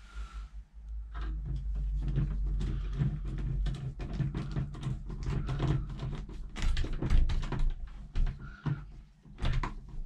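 Hand screwdriver driving a screw through a metal door-handle rose into a wooden door: a run of irregular clicks and scrapes as the tool bites and turns, over a low rumble in the first few seconds. The screw is striking the lock mechanism inside the door.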